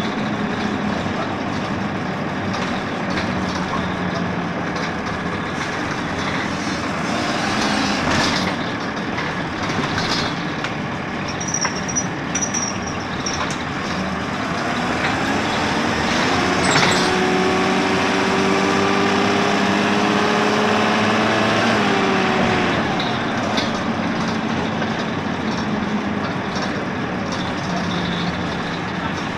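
Dennis Dart bus heard from inside the saloon: a steady engine and drivetrain drone, with brief air hisses that sound like the air brakes. About two-thirds of the way through, a whining note is held for several seconds.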